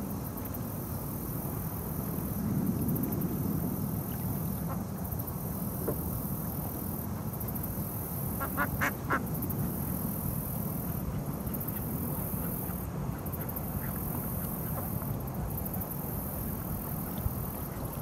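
Mallard duck quacking, a quick run of about four quacks about halfway through, over a steady low rumble and a high-pitched pulsing buzz.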